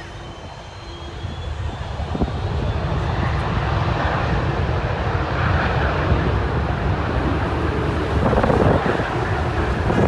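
McDonnell Douglas MD-82 airliner's Pratt & Whitney JT8D turbofans at takeoff thrust: a loud, deep jet rumble that builds over the first two seconds, then stays loud and swells again near the end.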